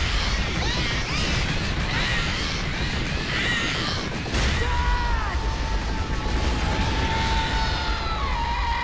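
Cartoon action soundtrack: explosions over a steady deep rumble, mixed with music. There is a sharp bang about a second in and another about four seconds in, and a long high note held through the last few seconds.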